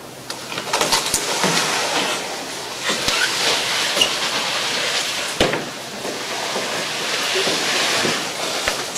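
Audience applauding, swelling about a second in and going on steadily.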